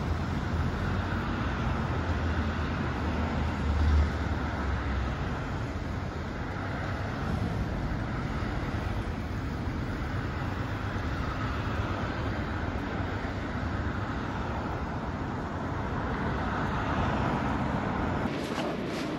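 Steady road traffic noise, with a low engine rumble from a passing vehicle that fades about five seconds in.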